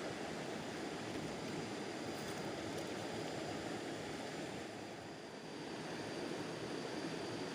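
Fast river current rushing, a steady noise of flowing water that eases slightly a little past halfway.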